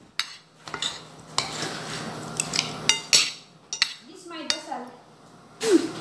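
Metal spoon and fork clinking and scraping against a plate while eating, in scattered sharp clicks, a few louder strikes about halfway through and near the end.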